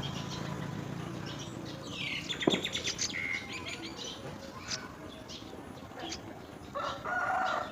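Birds chirping: a cluster of short high chirps and a falling call about two to three seconds in, then scattered chirps, and a lower call near the end.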